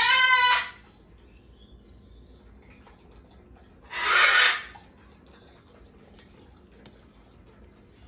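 A small parrot, a lovebird, squawking loudly twice while held for a nail-quick clip to draw blood: a shrill call of about half a second at the start and a harsher, raspier squawk about four seconds in.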